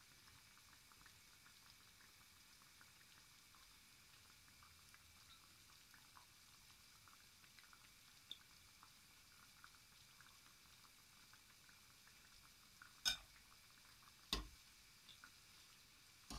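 Churro dough frying in hot oil in a small saucepan: a faint, steady sizzle with scattered tiny crackles. About thirteen seconds in come two sharp knocks a little over a second apart.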